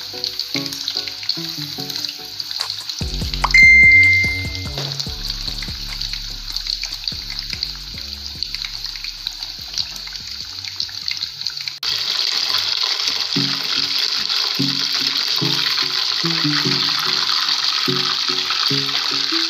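Chicken pieces deep-frying in a pot of hot oil, a steady sizzle, over background music. A short loud beep with a low thump sounds about three and a half seconds in, and the sizzle turns louder about twelve seconds in.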